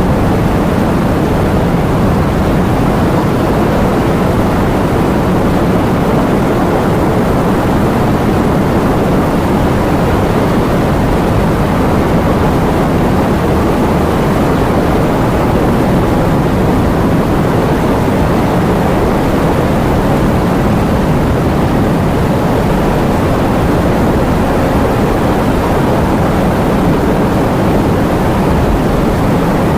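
Steady heavy rain: a dense, even rushing noise that stays the same throughout, low and full rather than hissy, with no separate drops or thunder standing out.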